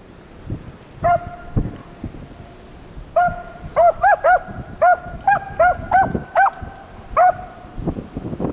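Beagles giving tongue while running a rabbit track: about a dozen short, high-pitched chop barks, the first one alone about a second in and the rest in a quick run. Wind rumbles on the microphone underneath.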